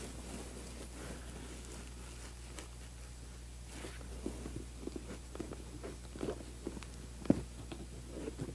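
Leather upholstery and its horsehair stuffing being handled and hand-stitched with needle and twine: soft rustles and light taps over a steady low hum, growing busier in the second half, with one sharper knock about seven seconds in.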